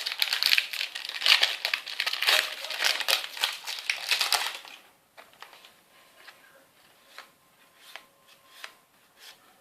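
Plastic trading-card booster packaging crinkling and tearing as it is ripped open, dense and loud for about four and a half seconds. After that come only faint scattered clicks and rustles.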